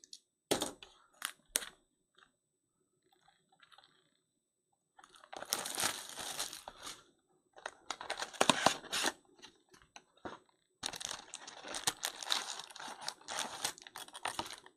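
Plastic shrink wrap crinkling and tearing as it is stripped off a cardboard trading-card box, in noisy bursts after a few light clicks and a near-quiet pause of about three seconds. Toward the end the box's cardboard lid is handled and opened.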